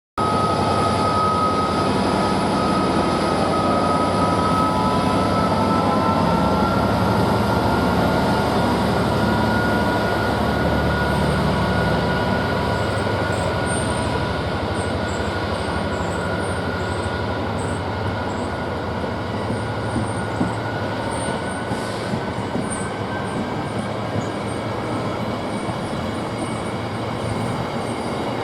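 Freight train rolling through on the rails, its wagons and wheels running with a steady rumble and one long high wheel squeal that slowly rises in pitch.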